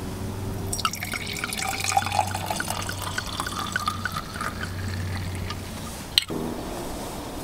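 Red wine glugging and splashing as it is poured from a glass bottle into a metal tumbler for about three and a half seconds, followed by a single sharp click about six seconds in as the bottle is capped. A steady low hum runs underneath.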